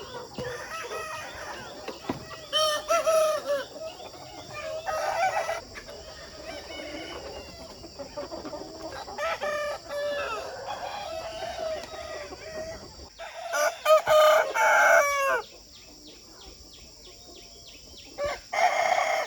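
A flock of chickens clucking, with several birds calling over one another and a rooster crowing; the loudest calls come about two-thirds of the way through.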